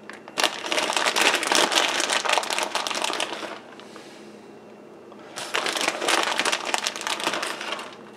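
Plastic bag of shredded Parmesan crinkling as it is handled and tipped to pour the cheese out, in two stretches of a few seconds each with a short pause between.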